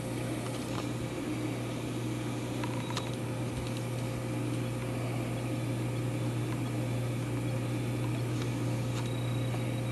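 Steady low electrical hum with a fainter steady tone over room noise, broken only by a few faint ticks.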